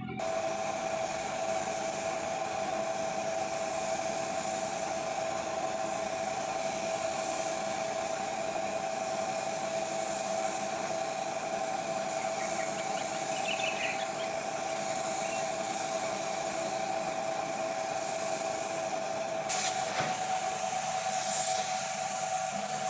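Power sander running steadily, sanding a sealer coat on wood, with a constant whine over an even hiss. There is a short sharp click near the end.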